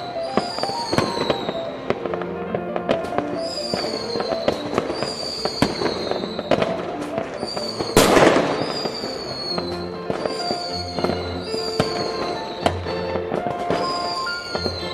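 New Year's Eve fireworks: many bangs and crackles, with one loud bang about eight seconds in. Music with held notes plays along, and short falling whistles repeat about once a second.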